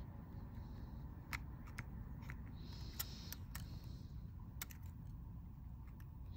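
Small, sharp clicks and taps of phone parts and repair tools being handled, about five spread across a few seconds, the loudest about three seconds in.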